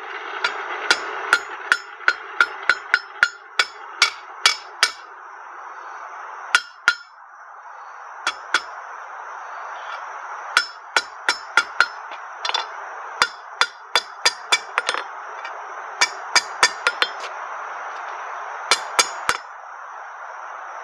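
Blacksmith's hand hammer striking a red-hot 1/2-inch square steel bar on an anvil, forging a dinner bell's clanker. The sharp metallic blows come in several runs of about three a second, with short pauses between, over a steady background noise.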